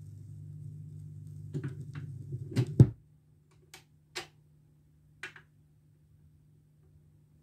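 Garrard SP25 Mk III turntable at the end of a record. A low hum comes through the speakers with a few clicks as the stylus rides the run-out groove, then a loud thump about three seconds in as the auto-return lifts the stylus off the disc and the hum cuts out. Three short mechanical clicks follow as the tonearm returns to its rest.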